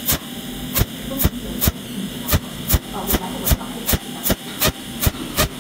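Cold welding machine (pulse arc spot welder) firing its tungsten needle in quick regular pulses, about two or three sharp snaps a second, laying one spot weld after another. A steady hum runs underneath.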